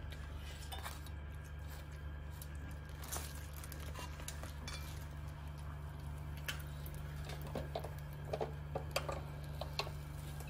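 Light clinks and clicks of plates and food being handled at a table, with a cluster of sharper clicks in the last few seconds, over a steady low hum.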